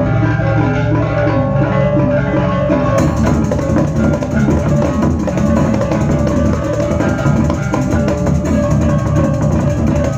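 Balinese gamelan ensemble playing a bebonangan-style piece: dense, fast interlocking strokes on ringing bronze gongs and metallophones over drums, loud and continuous. The sound turns brighter about three seconds in.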